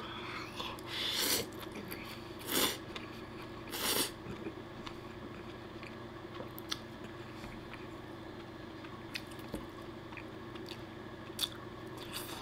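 A man eating spaghetti: three loud slurps of noodles in the first four seconds, then quieter chewing with scattered small clicks.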